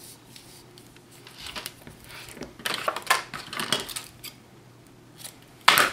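Light clicks and rustles as craft tools and a roll of double-sided tape are handled on a cutting mat, with the end of the tape being picked and peeled from the roll. A short, loud noise comes near the end.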